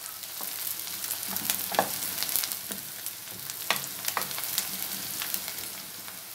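Chopped onions and green chillies sizzling in hot oil in a wok, with a steady hiss and frequent small crackles, while a wooden spoon stirs and scrapes them around the pan.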